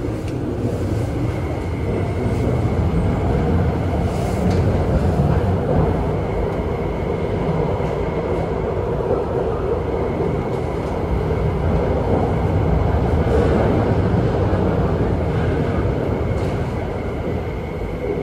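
MTR Tuen Ma Line train running at speed, heard from inside the car: a steady rumble of wheels on rail with a constant hum, swelling slightly in the middle.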